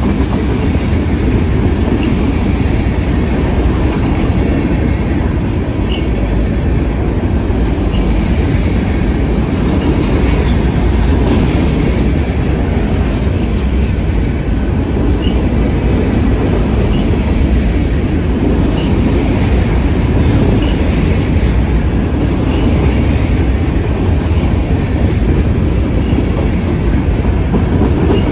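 Freight cars of a CSX mixed freight train, boxcars and covered hoppers, rolling steadily past on the near track: a loud, even rumble of steel wheels on rail, with brief high squeaks now and then.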